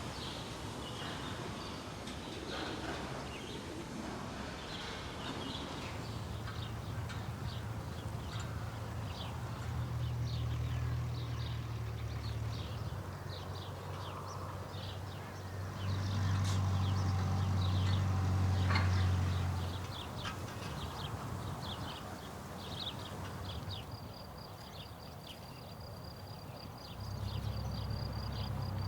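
Rural farm ambience: many short high chirps keep coming, over a low steady hum that swells for a long stretch about six seconds in, is loudest towards twenty seconds, and comes back near the end.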